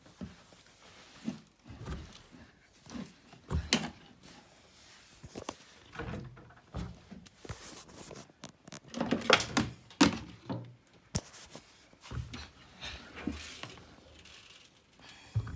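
Bosch WAN28281GB washing machine running, with irregular low thuds and sharp clicks. They come loudest in a cluster about nine to ten seconds in.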